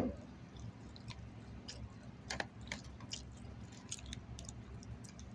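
A person chewing chicken salad close to the microphone, with scattered soft, wet mouth clicks and smacks.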